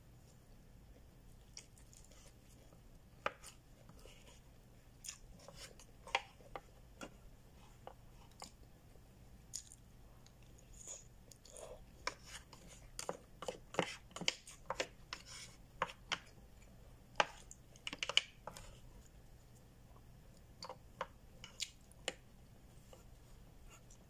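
A person eating rice and chicken kare-kare close to the microphone: chewing, with short clicks and taps of a plastic fork and spoon. The clicks come thick and fast for several seconds in the middle.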